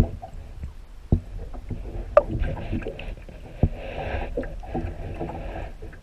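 Water rushing past the housing of an underwater fishing camera towed through the water: a steady low rumble with bursts of hiss and four sharp knocks spread through it.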